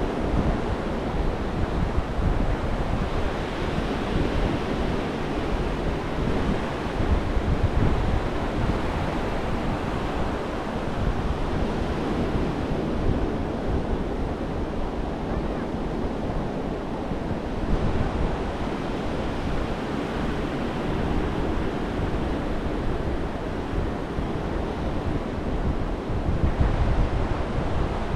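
Gulf of Mexico surf washing steadily onto the beach, with gusty wind buffeting the microphone.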